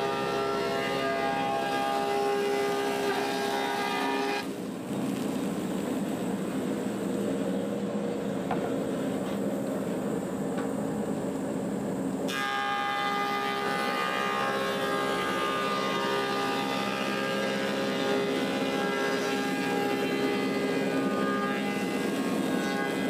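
Woodmaster 725 planer running with a steady multi-tone whine. From about four and a half seconds to twelve seconds the whine gives way to a rougher, coarser noise as the cutterhead takes a pass on a spalted apple slab. The plain whine then returns as the machine runs empty.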